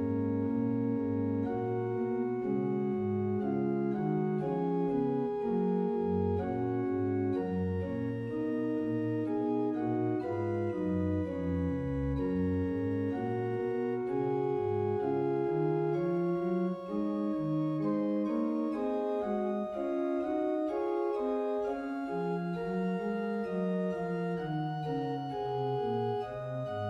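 Sampled pipe organ, the 1717–1719 Radeker and Garrels organ played through Hauptwerk, on diapason (principal) stops, playing a slow 18th-century English voluntary movement in sustained, smoothly moving chords. A low bass note is held at the very start, then the voices move in steady held notes.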